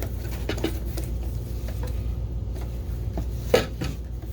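Hand-wiping and handling of a plastic projector cover: light rubbing and a few small knocks, with one sharper knock about three and a half seconds in, over a steady low hum.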